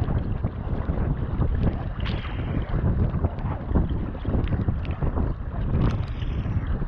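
Wind buffeting the microphone over the rush of choppy sea water against a sea kayak, with the paddle blades splashing in and out of the water on each stroke.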